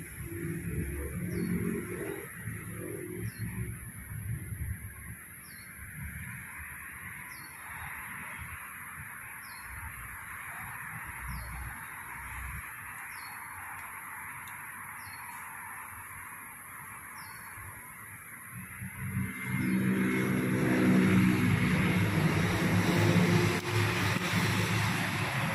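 Street ambience: a motor vehicle's engine passes at the start, a bird repeats a short high chirp about every second and a half, and about 19 s in a vehicle engine's low hum swells up close and stays loud.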